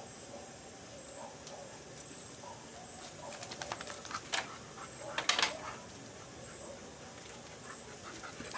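Crackling and popping of a burning wood bonfire: scattered sharp cracks, with a dense loud cluster about halfway through, over a faint low warbling murmur.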